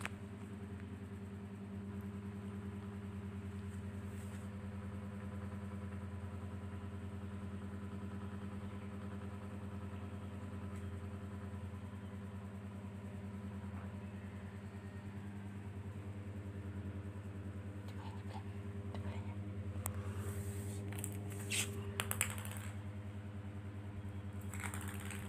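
A steady low electrical or mechanical hum with several even tones runs throughout. Several light clicks and taps come in over the last third.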